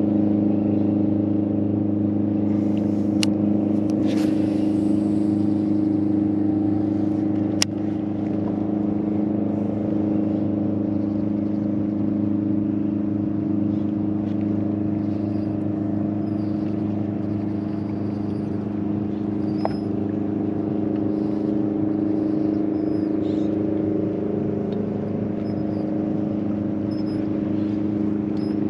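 Boat motor running at a steady, unchanging speed, a continuous even-pitched drone. Two sharp clicks stand out, about three seconds in and again near eight seconds.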